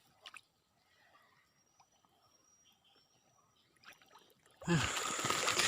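Faint ticks and quiet, then about four and a half seconds in a sudden burst of water splashing and trickling.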